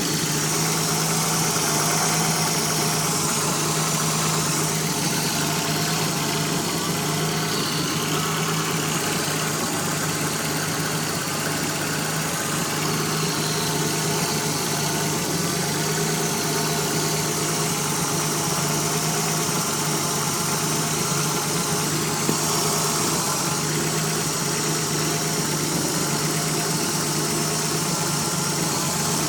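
Nissan 300ZX Z31's 3.0-litre V6 idling steadily, with a constant hiss over the engine note from a vacuum leak.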